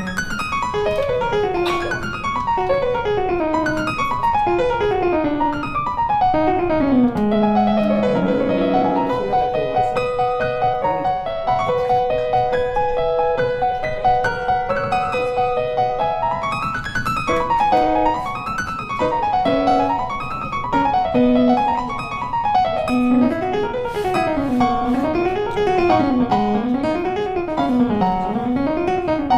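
Background piano music: quick runs of notes stepping downward, a stretch of held notes in the middle, then runs sweeping up and down again and again near the end.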